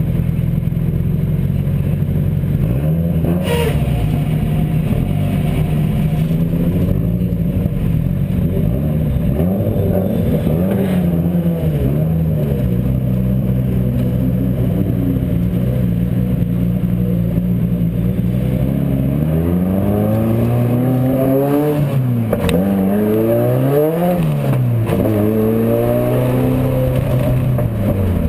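GT2 race car's engine running at a steady low idle as the car rolls slowly, with a sharp knock about three seconds in. From about twenty seconds in, the revs rise and fall several times as the car accelerates onto the track.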